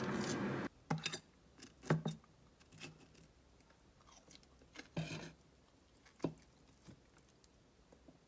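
A steady hum stops suddenly under a second in. After it come scattered soft clinks and knocks of a metal spoon on ceramic plates as omurice is cut and eaten, with quiet eating sounds.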